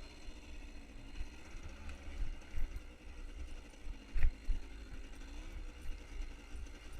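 A vehicle engine running steadily at low speed, with an uneven low rumble over it and a single sharp knock about four seconds in.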